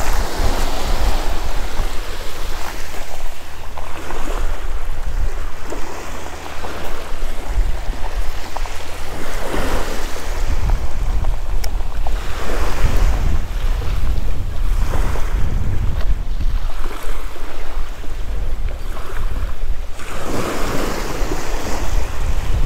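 Small saltwater waves washing up onto a shell and gravel beach every few seconds, over a constant low rumble of wind buffeting the microphone.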